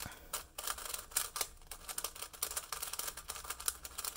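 DaYan V2 M magnetic Megaminx being turned quickly by hand: a rapid, irregular run of plastic clicks and clacks as its faces are turned one after another.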